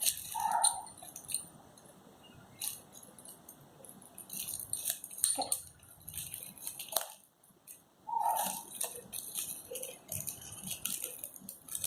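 Small plastic packaging being handled, with scattered rustles and clicks while a cable is unwrapped. Two brief pitched squeaks, one near the start and one about two-thirds through.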